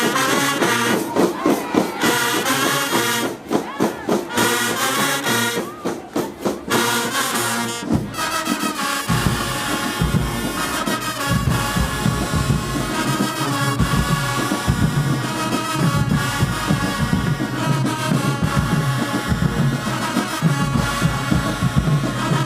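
High school marching band playing, led by brass: horns play the melody, with brief breaks, and about eight seconds in the low brass and drums come in underneath and the full band plays on.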